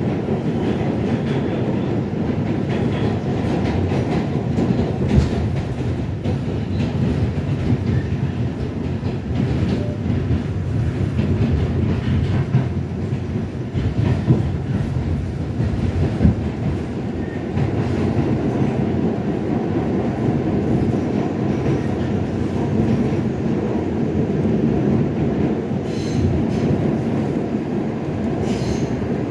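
New York City subway train under way: the steady rumble of the cars running on the rails, with scattered clicks and clacks from the wheels over the track.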